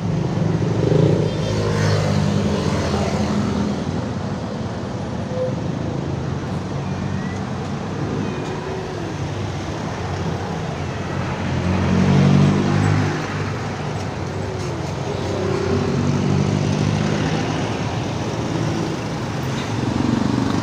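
Steady road traffic noise, with passing vehicles' engines swelling louder about a second in and again around the middle.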